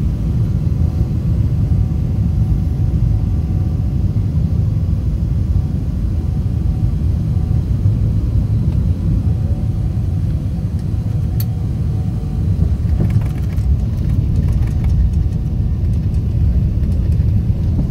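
Inside an airliner cabin during landing: a steady deep rumble of the engines and rushing air. About two-thirds of the way through come irregular knocks and rattles as the wheels touch down and the plane rolls along the runway.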